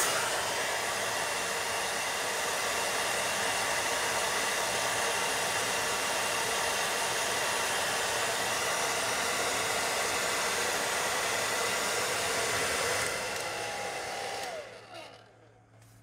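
Hair dryer's motor and fan running steadily, smooth and no longer cutting out now that its frayed power cord has been resoldered to the switch. About thirteen seconds in it shuts off and the fan winds down with a short falling whine.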